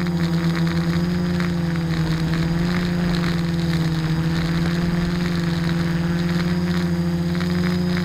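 Quadcopter's brushless electric motors and propellers humming steadily, heard from the camera on board, the pitch wavering slightly as the throttle shifts.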